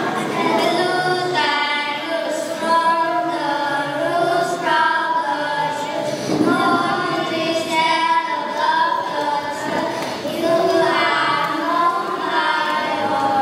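Four young children singing together in unison through microphones, in phrases of long held notes.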